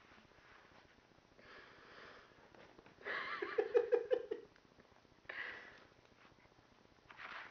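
Two dogs at play, a black dog and a white puppy, sniffing and huffing in short breathy bursts, with a short rapid pulsing vocal sound about three seconds in, the loudest part.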